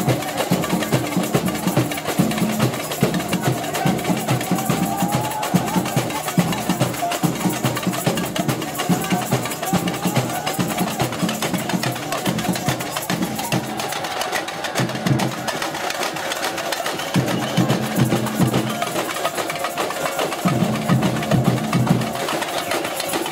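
Percussion-led music: drums beating a fast, steady rhythm.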